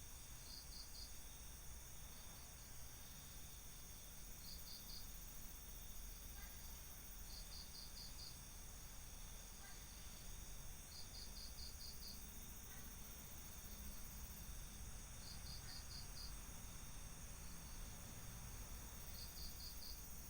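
Night cricket chirping: short bursts of three to six rapid pulses, repeating every three to four seconds over a steady faint high hiss.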